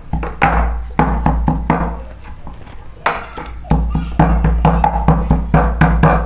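Tulsi leaves, garlic and spices being pounded to a wet paste with a stick inside a glass: a steady run of knocks, about three a second, with a short pause about halfway through.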